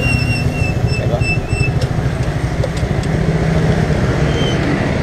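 Motorbike engine running steadily during a ride, mixed with wind rumble on the bike-mounted camera's microphone.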